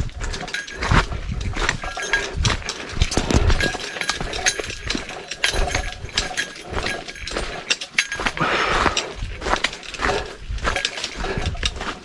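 Footsteps on a rocky, gravelly mountain trail: irregular crunches, scrapes and clicks of boots on stone, with low thuds at each step.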